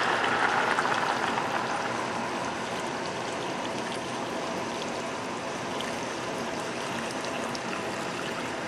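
Water pouring in a steady stream into a pot of diced potatoes and carrots, splashing onto the vegetables as the pot fills. It is a little louder for the first couple of seconds, then settles to an even pour.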